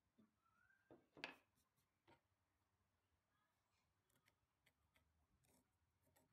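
Near silence, with a few faint clicks and light scratches from hand tools on wood, a marking gauge and a pencil marking out a hardwood board. The loudest click comes about a second in.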